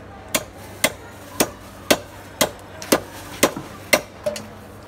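Wooden mallet striking a chunk of catla fish pressed onto an upright bonti blade, chopping it through: eight sharp knocks at about two a second.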